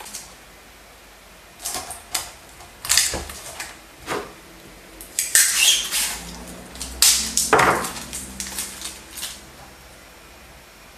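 Kapton tape being pulled off its roll and pressed onto an LED matrix panel's surface. It comes as about half a dozen short noisy rips and rubs, spread out with quiet gaps between them.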